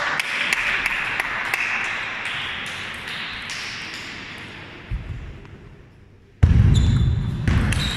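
Celluloid/plastic table tennis balls clicking on the table and on rubber paddles, a string of sharp taps against hall noise. A little over six seconds in, a sudden loud low rumble cuts in, with more ball clicks over it as a rally starts.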